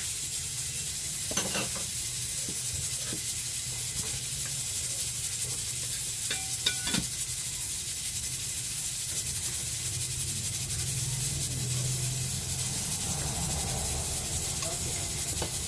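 A steady hiss with a low hum, over a few soft clicks and small sounds of a person eating rice and fish with her fingers.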